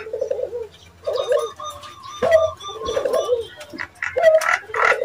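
Nias hill myna calls: a string of short, low calls roughly once a second, with a thin high whistle held over them through the middle. This is the jalak nias call used to make other Nias hill mynas answer.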